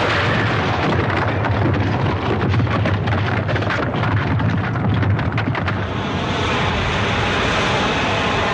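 Film sound effect of an atomic bomb's blast wave: a sudden loud rush of noise with deep rumble, crackling with flying debris for the first few seconds, then settling about six seconds in into a steady, wavering roar.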